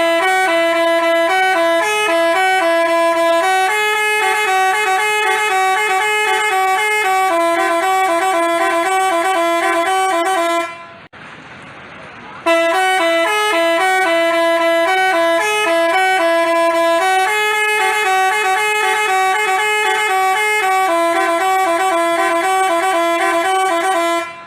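Basuri telolet musical bus horn playing its tune: a loud run of stepping horn notes, a few to a second, held and changing pitch. The tune breaks off for about a second and a half around the middle, then plays again from the start.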